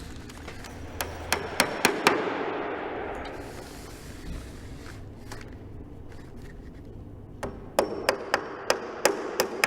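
Hammer tapping corrosion-resistant nails through roll flex into a timber hip batten. There is a quick run of about five strikes about a second in, and another run of about eight strikes near the end.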